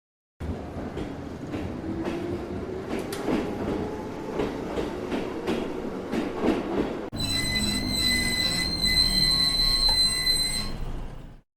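Dubbed electric railcar sound effect: wheels clacking over rail joints about twice a second under a motor tone that rises slowly in pitch. About seven seconds in it cuts abruptly to a high, steady wheel flange squeal, which stops suddenly near the end.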